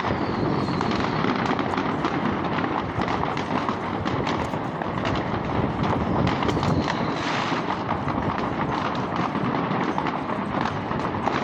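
Fireworks and firecrackers going off all around: a dense, continuous barrage of overlapping bangs and crackles, with no single blast standing out.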